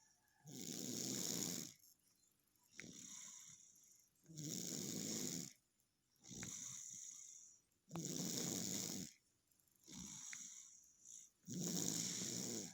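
A sleeping toddler snoring in a slow, regular rhythm. Four loud rasping snores come about three and a half seconds apart, each followed by a softer, hissing breath.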